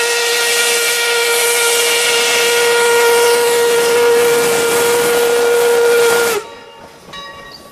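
Steam locomotive whistle blowing one long blast at a single steady pitch over a hiss of steam, cutting off sharply about six seconds in.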